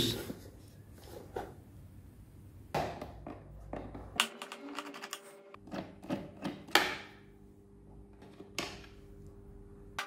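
Scattered light clicks and knocks of hard plastic as a canister vacuum cleaner's filter cover and body are handled and turned over for its screws to be undone.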